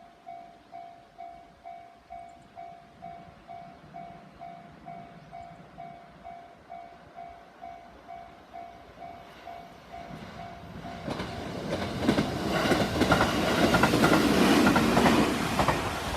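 Japanese level-crossing warning bell ringing in a steady rhythm, about two and a half strikes a second. About ten seconds in, a JR Central 373 series three-car electric limited express approaches and passes, its running noise and wheel clicks building to the loudest point near the end and swamping the bell.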